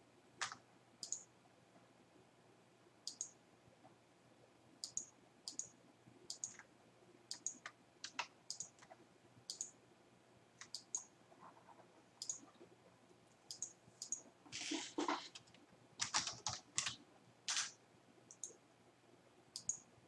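Computer mouse clicking now and then, sharp and light, with a short run of louder keyboard keystrokes about fifteen seconds in.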